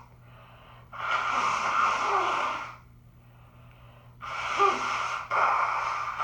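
A woman with a head cold in a sneeze buildup: three long, hissing, breathy blasts of gasping and sneezing, with quieter breaths between them. The last two come close together.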